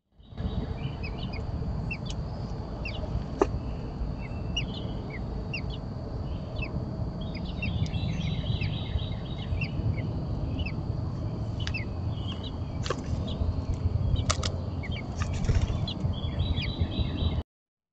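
Small birds chirping: many short, high, falling chirps with denser bursts of calling about halfway through and near the end, over a steady low rumble. A sharp tick comes about three seconds in.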